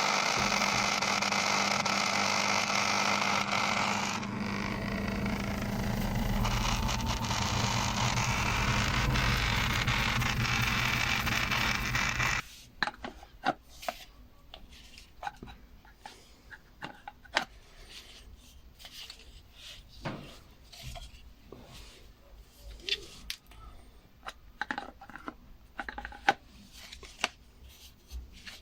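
LG washing machine water pump running on a quick direct mains test, a steady hum with a noisy rush that shows the pump motor working, cutting off suddenly about twelve seconds in. After that come scattered light clicks and scrapes of parts being handled.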